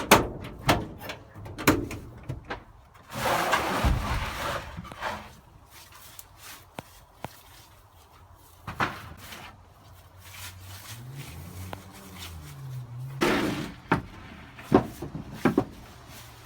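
A run of knocks and thuds, like handling and bumping around, with a short rush of noise about three seconds in and a few more knocks near the end.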